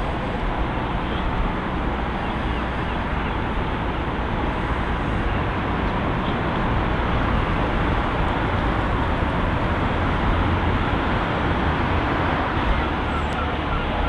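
Steady rumble and hiss of road traffic, with no single vehicle standing out.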